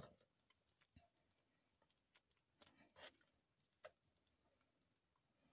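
Near silence broken by a few faint clicks of kitchen tongs against the crock pot's insert as a slice of pork roast is lifted out. The sharpest click comes right at the start, and a handful of fainter ones are spread over the next few seconds.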